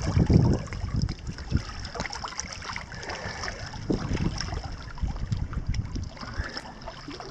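Lake water lapping and splashing at the shore, with wind rumbling on the microphone; a hand moving in the shallows makes the loudest splashing in the first second.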